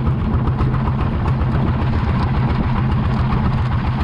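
Boat engine running steadily, loud and even, with a fast regular pulse.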